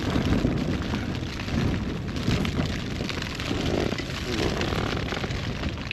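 Storm wind buffeting a tent with rain on the flysheet: a rumbling noise that rises and falls in gusts.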